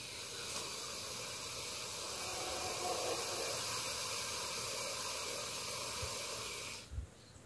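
Boa constrictor hissing: a long, steady hiss that stops suddenly near the end. It is the warning of an agitated, defensive snake.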